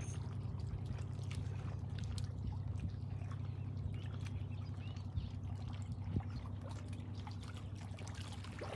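Lake water lapping and trickling around a wading angler while a bluegill is reeled in, with faint small clicks over a steady low hum.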